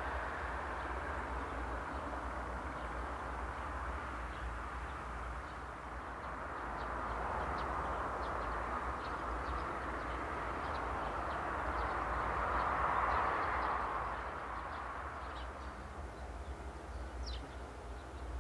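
A train running at a distance, its sound swelling about halfway through and then fading away, with small birds chirping over it and one longer bird call near the end.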